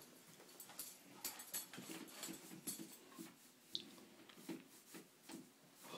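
Faint scattered taps, scuffs and rustles of small movements and handling, with a few soft brief sounds in between; no clear single source.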